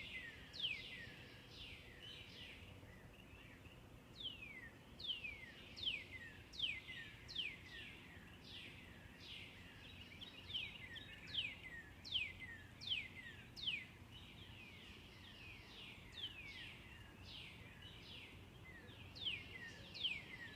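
Songbird singing runs of clear whistled notes, each sliding down in pitch, repeated several times a run with short pauses between runs, over a faint steady background hum.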